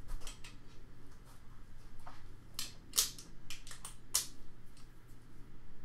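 A handful of sharp light clicks and taps, bunched about two to four seconds in, over a steady low hum.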